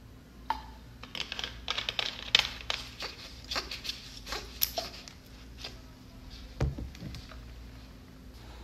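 A plastic soda bottle being capped and handled beside a glass of fizzy drink over ice: several seconds of sharp, crinkly clicks, then a single dull thump about two-thirds of the way through as the bottle is set down on the table.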